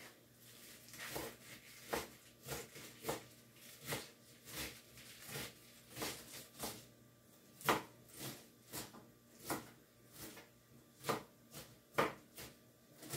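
Kitchen knife chopping cabbage on a cutting board: a string of irregular knocks, roughly two a second, a few of them louder than the rest.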